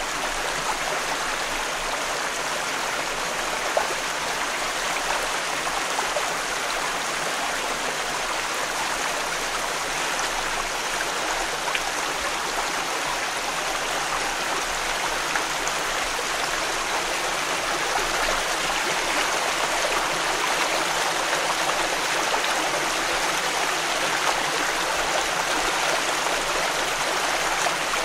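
Close-up of a small stream flowing steadily over rocks, with splashing and gurgling water.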